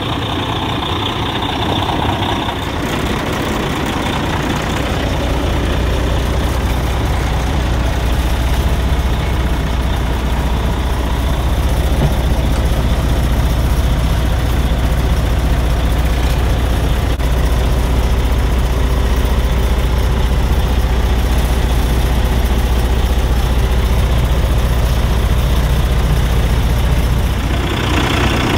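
Caterpillar C13 diesel engine of a Kenworth T800 truck idling steadily, with a low, even drone that gets stronger about three seconds in.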